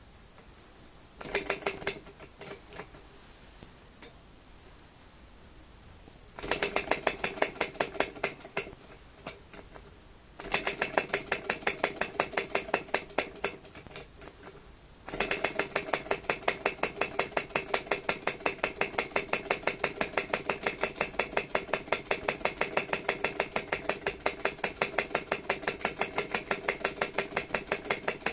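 Small vacuum (flame-licker) model engine running with a rapid metallic clicking: three short spells that start suddenly and die away, then from about halfway it keeps running with an even clatter of about four to five beats a second. Its cylinder has been cleaned and its intake shutter oiled for a tighter seal, so it now runs on smoothly.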